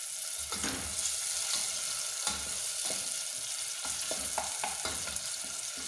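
Chopped onions sizzling in hot oil in a stainless steel pot while a wooden spoon stirs them, with irregular scrapes and light knocks of the spoon against the pot.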